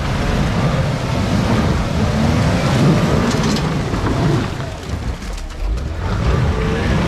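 An off-road 4x4's engine running and revving under load, its pitch rising and falling, with a noisy rumble of tires and the vehicle working over the rocky trail obstacle.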